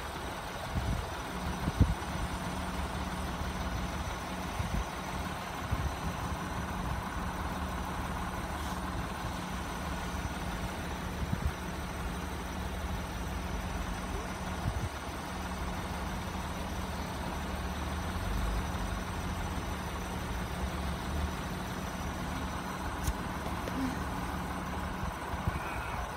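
Car engine idling steadily with a low hum, heard while waiting at a closed level crossing.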